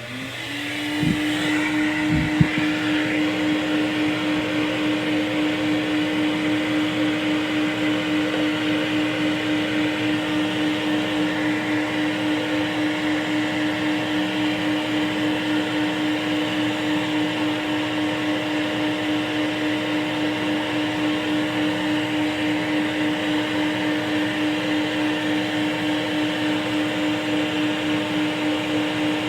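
An electric motor spins up and runs at a steady speed with a strong even hum, as a worn commutator is cleaned with armature-cleaning chalk so the new carbon brushes will not spark. Two short knocks about one and two seconds in.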